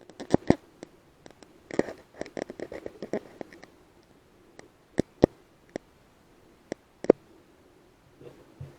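A series of sharp, irregular clicks and knocks, with a busier cluster of them about two to three and a half seconds in and a few single louder ones later.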